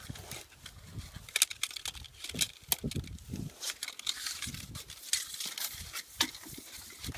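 Irregular clicks, scrapes and rustling as a flat steel sewer rod is worked by hand into a clogged drain pipe.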